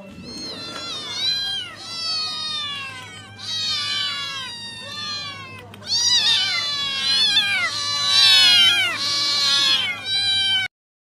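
Several domestic cats meowing over one another in a constant stream of short calls that fall in pitch, louder from about six seconds in, then cut off suddenly near the end.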